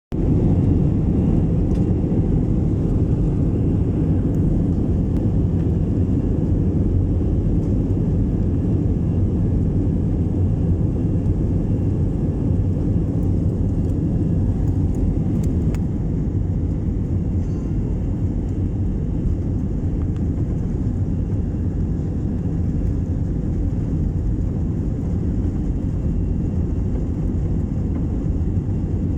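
Airplane taking off: a steady low rumble of engines and rushing air, easing off slightly over the half minute.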